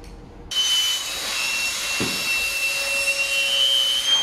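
Electric air pump switching on about half a second in and running steadily: a loud rushing of air with a high motor whine, blowing air into a PVC inflatable horse.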